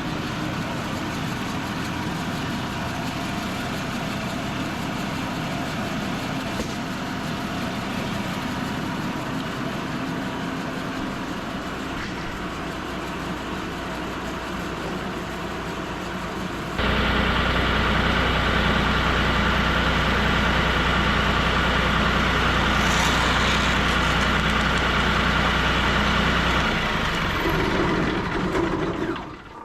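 Bandsaw sawmill engine running steadily at low speed. About 17 seconds in it suddenly throttles up and runs loud as the band blade saws through a red oak log, falling away near the end.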